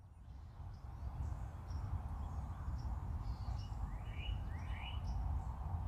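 Outdoor ambience: a steady low rumble with birds chirping, including two quick rising chirps about four seconds in.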